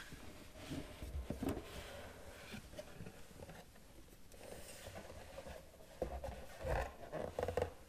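Packaging being handled and opened by hand: soft rubbing and scraping, with a cluster of louder handling noises near the end.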